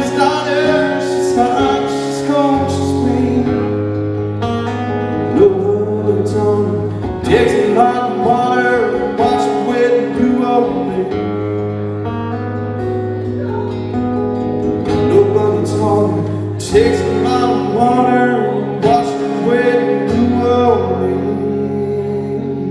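Acoustic guitar playing a song, strummed chords with picked and sliding notes over a steady rhythm.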